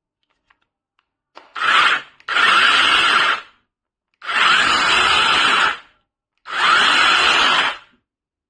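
Battery-powered mini chainsaw's brushless motor and chain running in four short bursts, each a second or so, as the trigger is pulled and released, with a steady high whine.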